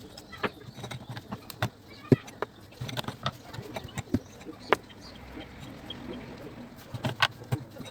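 Irregular sharp knocks and clicks of hard objects being handled and set down, more than a dozen over several seconds; the loudest come about two seconds in, near five seconds and near seven seconds.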